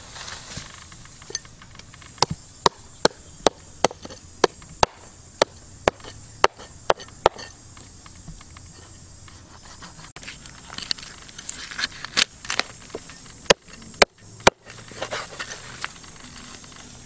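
Knife chopping on a wooden board, sharp strokes about two a second, stopping about seven seconds in. Then irregular clinks and knocks, with two louder knocks near the end.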